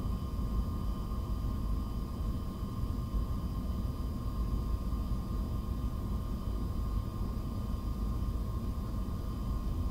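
Steady low rumble of background noise, with faint steady high-pitched tones that do not change.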